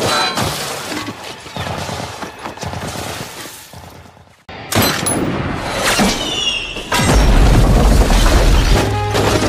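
Film battle sound effects: shots and impacts, then a sudden loud explosion about seven seconds in, with a deep rumble as dirt and rock are blasted from a hillside.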